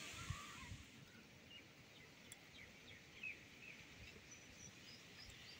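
Near silence: faint outdoor background with a few faint, short bird chirps.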